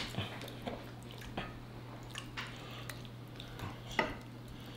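Close-up eating sounds: soft wet squishing of pig feet handled in gloved hands and chewing, with scattered light clicks of a fork against a glass bowl. The sharpest click comes about four seconds in, over a steady low hum.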